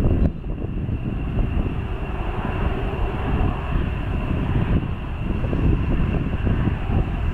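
Rolls-Royce Trent 700 jet engines of an Airbus A330-300 at taxi power: a steady rumble with a thin, steady high whine on top.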